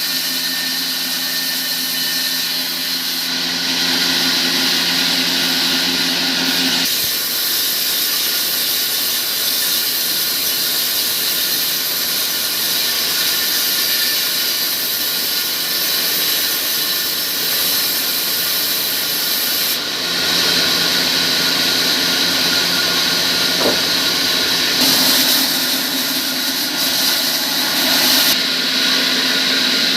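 A power tool running continuously with a high, squealing whine, its sound shifting several times as it is worked, including a clear change about seven seconds in and another near twenty seconds.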